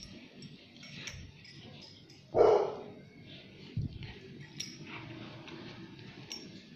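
White schnauzers scuffling in play over a cloth, with one short, loud bark about two and a half seconds in and a low thump a little later.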